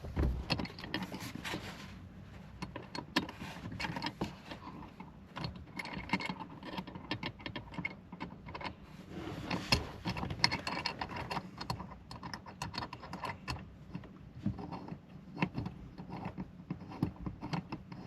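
Irregular small clicks, taps and rattles of hands handling and fitting the parts of a truck phone mount.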